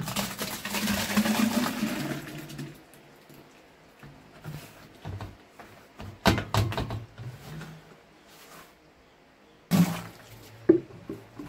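Thick, pulpy soaked fruit mash gushing out of a plastic jar into an aluminium pot for about two and a half seconds. A few seconds later come several knocks as the upturned jar is set and tapped on the pot's rim.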